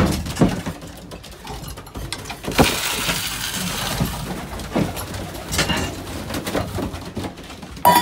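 Pigeon feed grain poured into a wooden feeding trough: a rush of rattling grain about two and a half seconds in, lasting about a second and a half, among scattered knocks and clinks of the trough and feed container.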